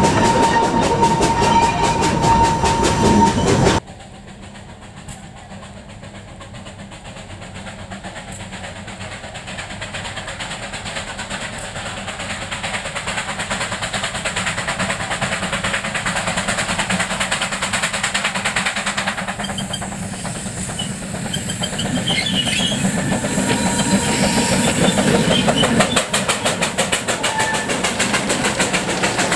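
Small steam locomotive running with its train on a light railway, wheels clicking over the rail joints. A steady high tone sounds over it for the first few seconds. After a sudden drop about four seconds in, the train is fainter and grows gradually louder as it comes closer.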